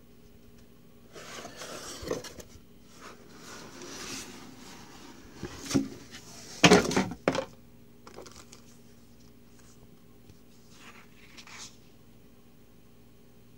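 Cardboard box being opened by hand: flaps scraping and rustling, with a short run of loud cardboard knocks and thumps about halfway through, then a paper manual rustling as it is lifted out.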